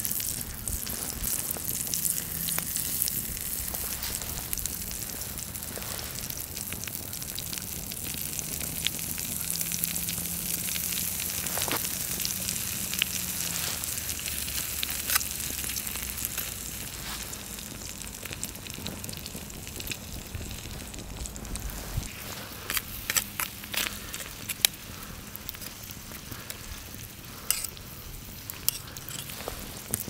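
Butter sizzling in a small metal pan over a wood campfire, a steady frying hiss, with sharp crackles and pops from the fire that come more often in the last few seconds.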